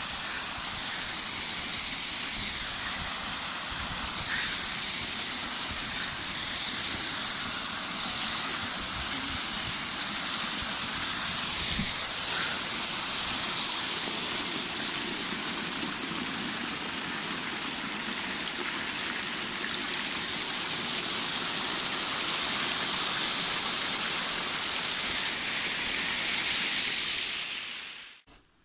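Water pouring steadily over a small drop, a continuous rush that cuts off suddenly near the end.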